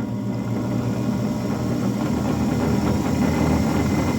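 South Bend 9-inch metal lathe running under its electric motor: a steady hum with a slight vibration, growing a little louder. The vibration comes from the lathe not being bolted down; the motor itself runs smoothly.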